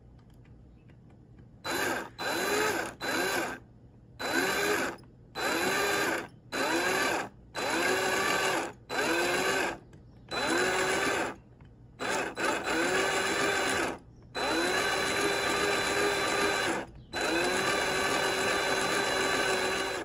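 Power drill boring a small twist bit into a knife's brass bolster, run in short pulses. After about a second and a half it gives about ten bursts of under a second, each spinning up with a rising whine. Near the end come longer runs of two to three seconds.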